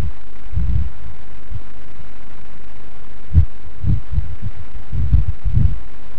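Irregular low, muffled bumps and rumbles of clothing and cable rubbing against a clip-on microphone while writing on a whiteboard, with a sharper knock about three and a half seconds in. A steady hiss runs underneath.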